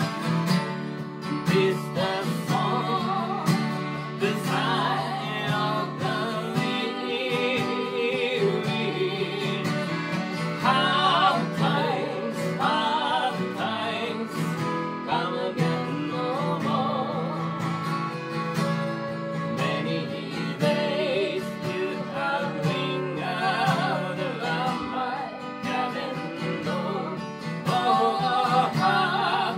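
A woman singing a folk song, accompanied by an acoustic guitar and an accordion.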